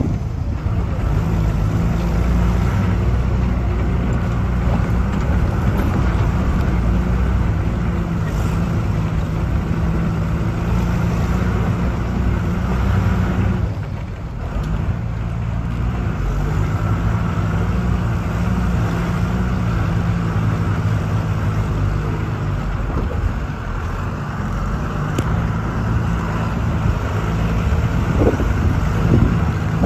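Bus engine running under load with a steady low drone, mixed with rumbling road noise from the rough gravel track. The engine note drops away briefly about halfway through, then picks up again.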